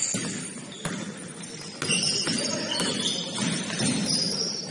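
Basketball game in a gym: short, high-pitched sneaker squeaks on the court floor several times over, a few knocks of the ball, and players' voices underneath.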